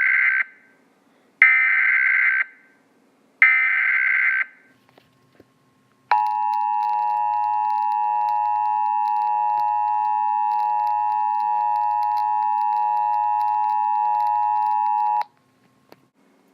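Emergency Alert System tones: three SAME digital header bursts, each a buzzy data screech about a second long and the first already under way, encoding the flood watch alert. After a pause of about a second and a half comes the EAS two-tone attention signal (853 and 960 Hz), held steady for about nine seconds before it cuts off.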